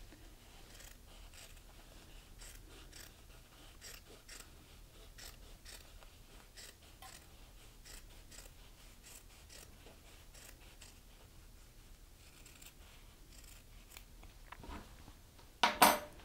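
Small pointed embroidery scissors snipping through a shirt collar stand's seam allowance to grade it down, in short quiet cuts about twice a second. Near the end there is one louder clack as the scissors are set down on the wooden tabletop.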